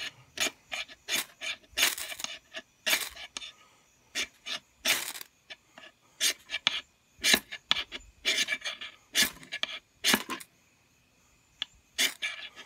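Steel striker scraped again and again down a ferrocerium rod, sharp rasping strokes about two to three a second, throwing sparks. It takes many strikes to catch the fatwood, and the strokes pause for about a second near the end before starting again.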